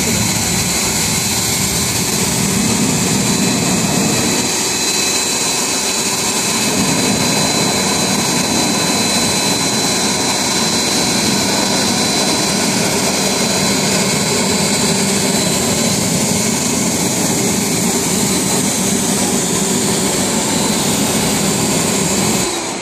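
Hoover Power Wash electric pressure washer running, its lance spraying a high-pressure jet of water into a clear acrylic box: a loud, steady hiss with a thin high whine over it. It cuts off near the end as the trigger is released.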